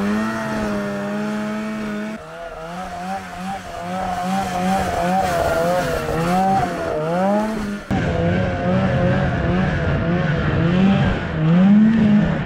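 Arctic Cat 370 snowmobile's small two-stroke engine revving up and down as the sled rides over snow. Its note rises and falls repeatedly and climbs sharply near the end.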